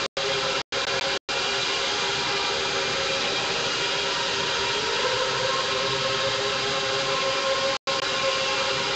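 Electric guitar drone: several held tones over a dense, hissing wash, with one tone sliding upward about halfway through. The sound cuts out briefly three times near the start and once near the end.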